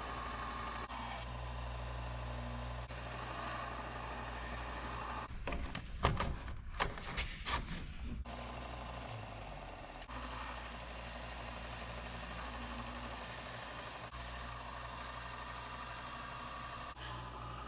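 A steady mechanical hum, broken about six seconds in by a quick run of about six sharp hammer strikes on hot spring steel being flattened.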